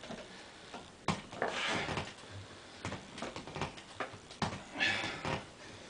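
Two heavy breaths from a man straining through weighted repetitions, with a few soft knocks from the swinging-seat exercise machine as it moves.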